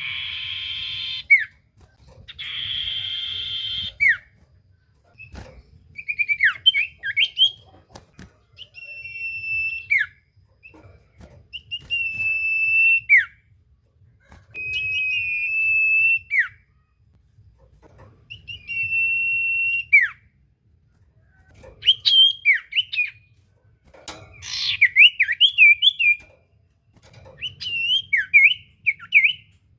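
Common iora (cipoh) singing: a series of long drawn-out whistles, each ending in a quick falling note, repeated every few seconds, with short quick twittering phrases between them. Two harsh, rasping calls come in the first few seconds.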